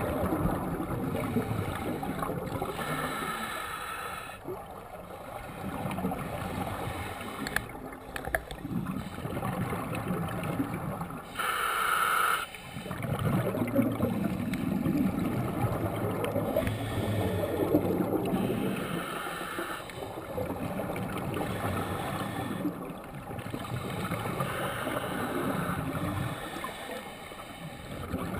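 Scuba divers breathing through their regulators, heard underwater. Several slow breaths, each a short hissing inhalation followed by a longer bubbling rumble as the exhaled air streams out. The loudest hiss comes about twelve seconds in.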